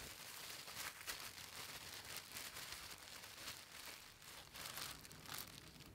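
Thin plastic bag crinkling faintly and irregularly as a baked donut is shaken inside it, coating it in cinnamon sugar.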